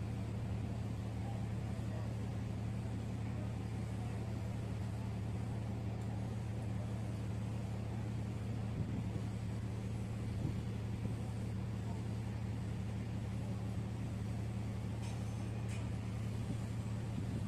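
Ship's diesel engines running steadily: a constant low drone that does not change in pitch or loudness.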